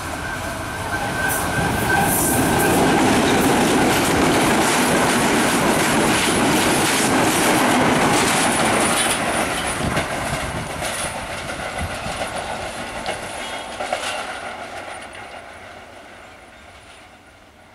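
Class M6 diesel-hauled passenger train passing close by: the locomotive runs past, then the coaches roll over the rails with clattering wheels and a thin high wheel squeal. Loudest through the middle, it fades away as the train recedes.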